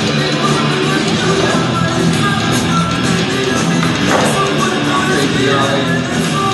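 Backing music: a rock track with guitar, playing steadily.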